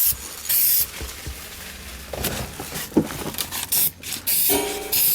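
Rust-Oleum Hammered aerosol spray paint can spraying in short hissing bursts: one right at the start, another under a second in, and a third near the end. Between them is a quieter stretch with faint rubbing and clicks.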